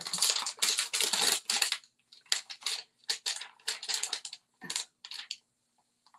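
Craft supplies being rummaged through and handled close to the microphone: crinkly rustling for about two seconds, then a run of shorter rustles and clicks.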